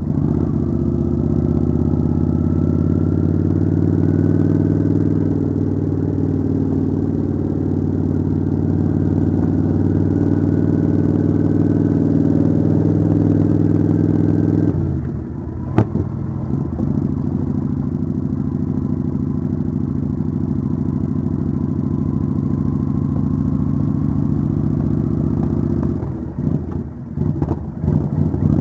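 Kawasaki Vulcan 900 V-twin motorcycle engine running at road speed, its pitch rising slowly over the first few seconds. About halfway through the engine note drops briefly as the throttle eases, with one sharp click. Near the end the sound dips unevenly for a couple of seconds before the engine pulls up again.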